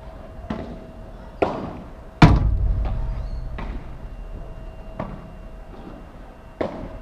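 Padel rally: sharp pops of the ball off paddles and the court, about one every second or so. About two seconds in comes the loudest hit, a heavy thud that booms on for a couple of seconds, the ball striking the glass wall close by.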